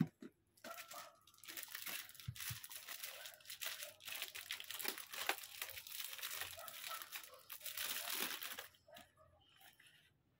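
Plastic bag crinkling as a guitar effects pedal is unwrapped by hand: a continuous crackly rustle that stops near the end.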